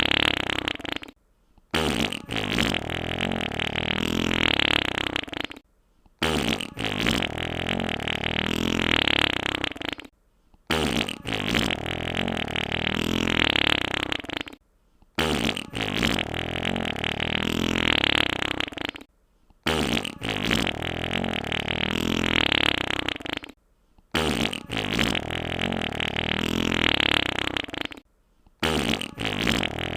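Wet fart sound effect: a long, wet fart that repeats about every four and a half seconds, with a short silence between repeats.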